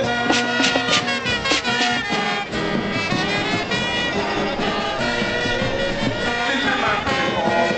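Brass-led band music: held chords with a run of short percussive strokes in the first couple of seconds.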